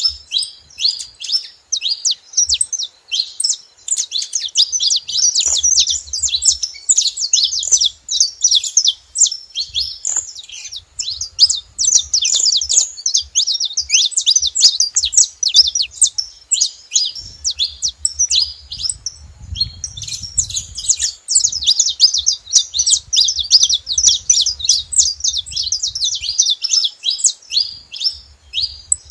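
Several saffron finches chirping and singing together, a dense, busy stream of quick high notes with a short pause a little past halfway. A faint low rumble sits underneath.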